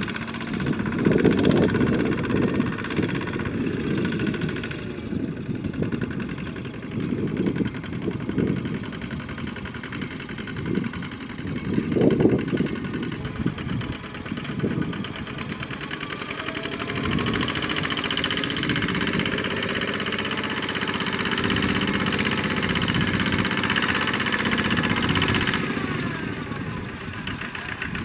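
Single-cylinder diesel engines of two-wheel walking tractors running under load while pulling rice-laden trailers through mud. The engine sound swells and eases several times, then holds a steadier note for several seconds late on.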